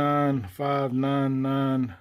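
A man's voice holding two long, drawn-out hesitation sounds at a steady pitch, like a stretched "the…" and "um…", with a short break about half a second in.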